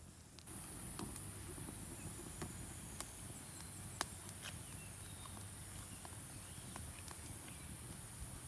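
Steady high insect drone that sets in about half a second in, over scattered small clicks and taps.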